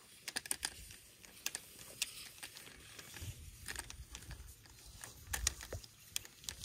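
Irregular light clicks, crackles and rustling from handling the black poly drop pipe and taped pump wire as they are fed down a well casing, with a couple of louder knocks about halfway through and near the end.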